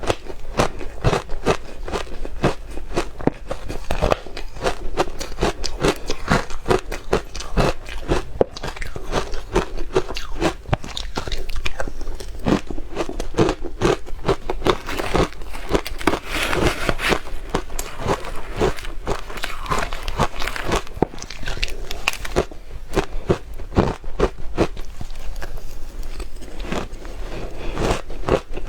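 Soft, powdery ice and crushed ice being bitten and chewed close to the microphone: a dense, continuous run of crunches.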